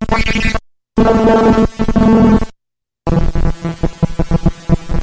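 Circuit-bent LeapFrog Phonics Pond toy putting out glitchy, buzzy electronic tones that cut out abruptly twice, then break into a fast, choppy stutter near the end.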